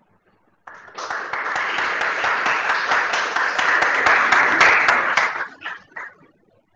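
Audience applauding. The applause starts just under a second in, holds for about five seconds, then dies away into a few last claps.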